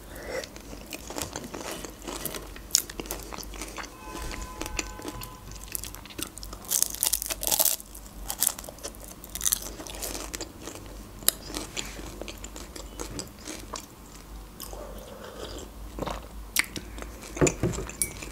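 Close-up biting and chewing of a crisp fried pastry with a red fruit filling: irregular sharp crunches of the crust between softer chewing, the loudest crunches about seven seconds in.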